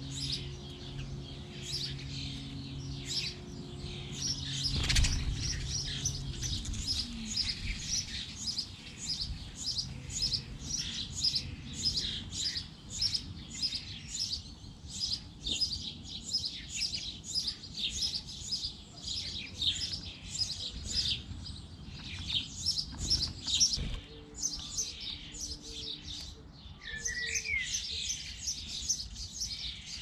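Sparrows chirping over and over, several short chirps a second, all through. A low steady hum fades out about seven seconds in, and there are dull thumps about five seconds in and near 23 seconds.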